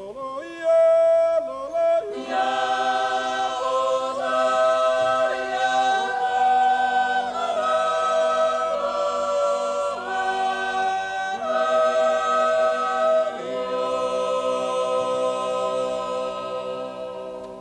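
Small mixed Swiss folk choir singing a cappella. The full group comes in about two seconds in and holds sustained chords that change every second or two. The final chord fades out near the end.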